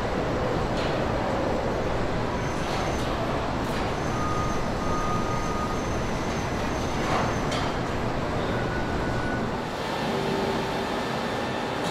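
Steady factory-floor machinery noise on a truck assembly line. A few faint high whines come and go, with some light knocks.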